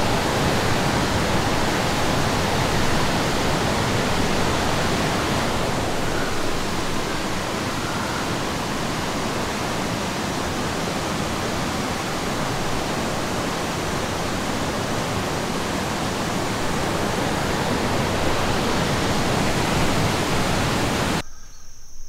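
Steady rush of falling and flowing stream water. It cuts off abruptly about a second before the end, leaving faint insect chirping.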